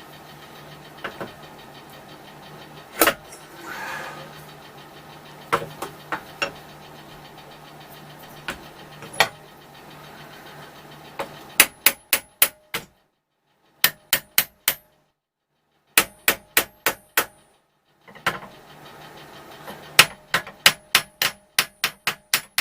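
Hammer tapping on metal. A few scattered single knocks come first, then from about halfway in there are quick runs of four to eight taps, each with a short metallic ring, separated by brief pauses.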